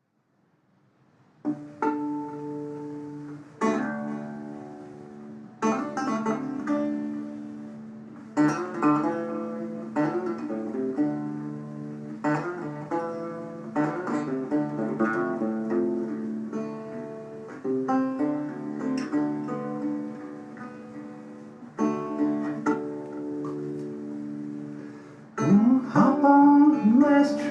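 Guitar intro: chords struck about every two seconds and left to ring, turning louder near the end with notes gliding up and down in pitch.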